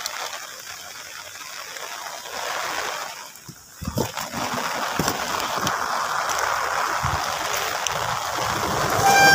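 Running water splashing and trickling steadily, dropping away briefly about three and a half seconds in and then coming back louder.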